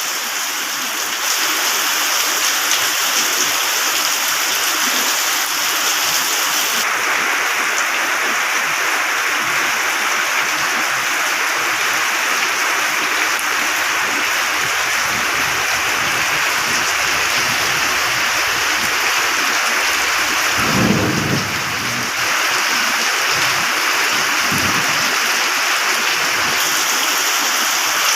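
Steady heavy rain with a short low rumble of thunder about three-quarters of the way through.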